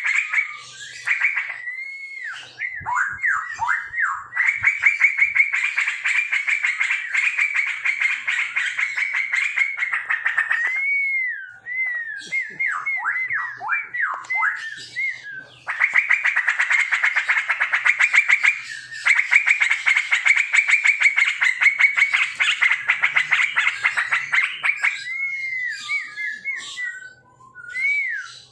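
Straw-headed bulbuls (cucak rowo) singing loudly: long stretches of fast, dense chattering broken by rounds of swooping, looping whistled notes a few seconds in, around the middle and near the end.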